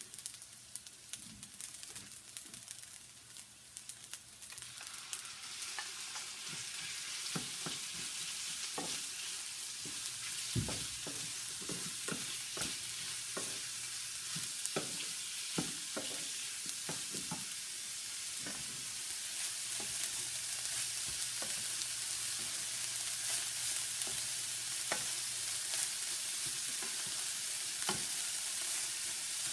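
Shrimp frying in hot oil in a small frying pan: a steady sizzle that swells about four seconds in as the shrimp go in. Scattered knocks and scrapes come from a spoon stirring in the pan.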